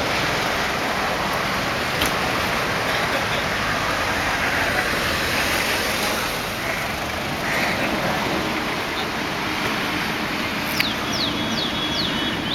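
Steady traffic noise, with a quick series of high, falling chirps near the end.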